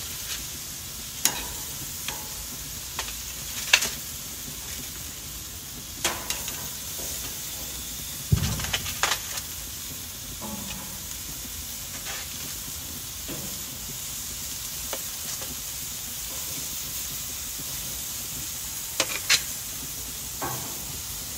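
Meat sizzling on a gas grill's grates, a steady hiss, broken now and then by sharp clicks and clacks of metal tongs against the grate as lamb chops are laid on.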